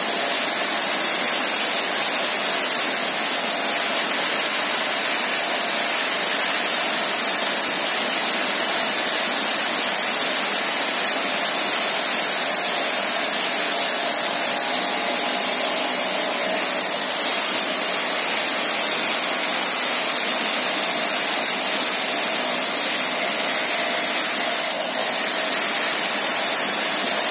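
Handheld electric core drill running steadily as its core bit cuts a hole through a brick wall: a constant high whine over an even grinding noise.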